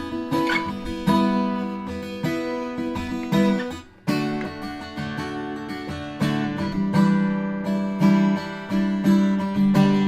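Acoustic guitar strumming chords. The playing stops briefly about four seconds in, then picks up again.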